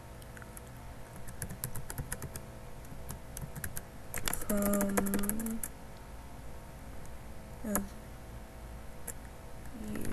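Typing on a computer keyboard, a quick, irregular run of key clicks. About four and a half seconds in, a person's voice holds one note for about a second, and a shorter voice sound comes near eight seconds.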